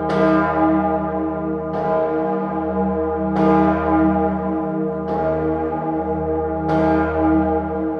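The great Salvator bell of Salzburg Cathedral, the largest of its seven bells and tuned to E-flat, swinging alone. Its clapper strikes at an even pace, about once every 1.7 seconds, five strokes in all, and each stroke rings out over a steady deep hum.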